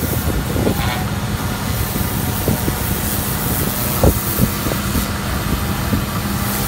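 Pressure washer running: a steady motor drone and the hiss of the water jet, with a few light knocks as the spray wand and hose are handled.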